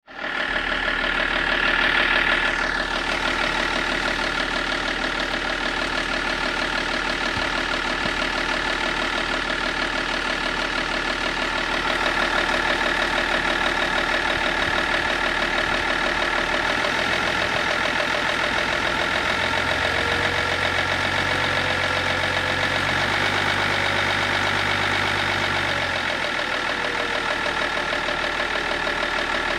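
Car engine idling with a strange knock from between the engine and the automatic transmission, a rapid steady knocking over the running engine. A deeper hum joins for a few seconds about twenty seconds in.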